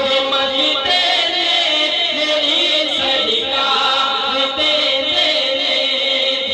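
Male voices singing a Punjabi naat, a devotional song in praise of the Prophet, into hand microphones, with long gliding melodic lines.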